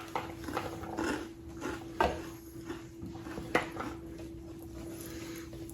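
Eating at a meal: scattered light clinks and taps of a plate and cutlery, the sharpest about two seconds in, over a faint steady hum.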